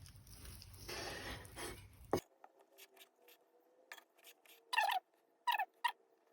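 Faint knife work on a cutting board as cooked chicken breast is cut into pieces: soft slicing and small taps, ending in a click. Then a few short, faint squeaky sounds near the end.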